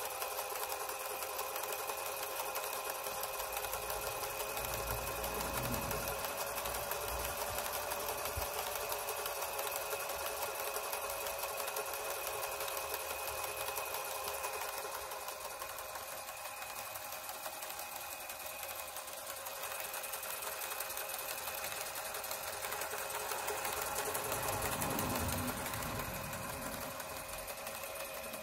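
Universal electric motor running steadily at speed, belt-driving a railway tachogenerator, with a steady whine and a fast mechanical rattle.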